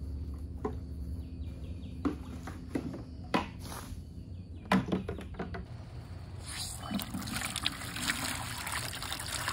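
A few scattered knocks and clicks, then, about six seconds in, water from a hose starts running steadily into a plastic bucket.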